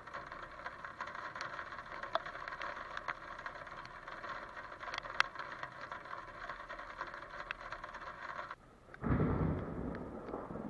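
Heavy rain falling as a steady hiss with scattered ticks of drops. It cuts off abruptly, and about a second later a louder, low, rumbling noise begins.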